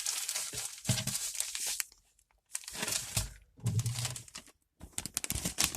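Plastic bag crinkling in four bursts with short pauses between them as it is handled and squeezed.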